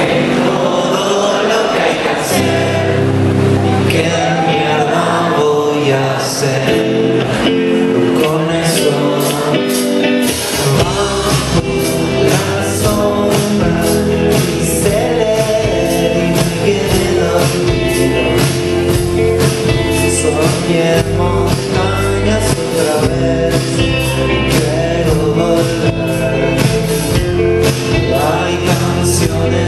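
Live rock band playing loud through a club PA, heard from within the audience: sustained guitar chords and sung vocals, with drums and bass coming in fully about ten seconds in and a steady beat after that.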